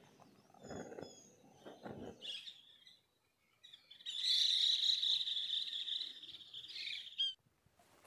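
Small birds calling: a few short high chirps in the first couple of seconds, then a dense, fast run of high calls for about three seconds that stops abruptly. Some low rustling and knocks come in the first two seconds.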